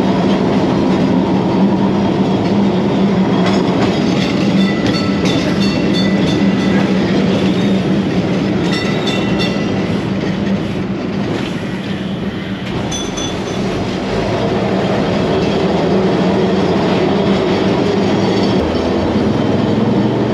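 An old Kolkata electric tram running along street track, heard from inside the open-windowed car: a steady low hum under a continuous rumble, with the rattle and clack of the wheels and the loose wooden car body.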